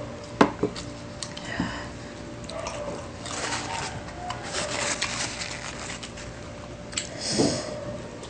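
Wet chewing and smacking mouth sounds of people eating, with a few sharp clicks in the first two seconds and a louder wet burst about seven seconds in.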